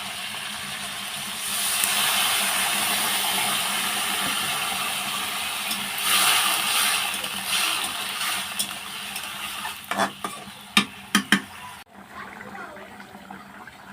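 Food sizzling in hot oil in a pan while being stirred, with a few sharp knocks against the pan about ten seconds in.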